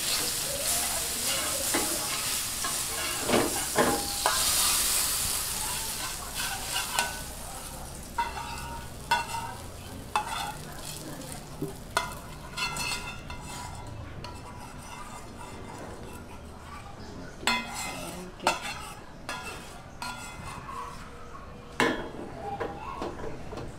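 Food sizzling in a hot pan, the hiss loud for the first few seconds and then dying down. It is followed by a cooking utensil scraping and knocking against the pan in irregular strokes, as the food is stirred.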